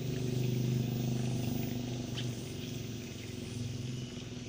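An engine hums steadily at an even pitch, then fades away about four seconds in.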